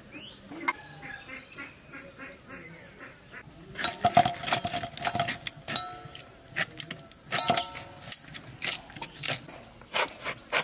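A curved iron chopping blade cutting a raw duck carcass into pieces through flesh and bone. It gives a run of sharp chops and knocks, one or two a second, starting about four seconds in.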